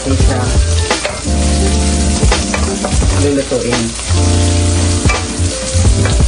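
Sliced onions sizzling in oil in a nonstick frying pan, stirred with a wooden spatula that scrapes and taps against the pan now and then. Background music with sustained low notes plays underneath.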